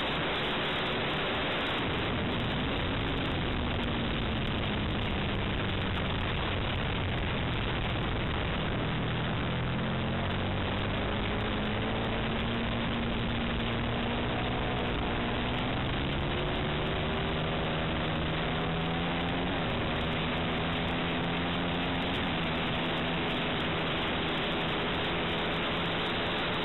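Onboard sound of an Aprilia RSV 60-degree V-twin sportbike at speed on track. Steady wind rush over the camera microphone covers most of it, with the engine note faintly heard underneath, its pitch climbing and dropping several times as the rider works the throttle.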